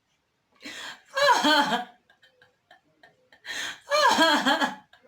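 A woman laughing in two bouts, each starting with a breathy burst, with faint mouth clicks from eating in the pause between.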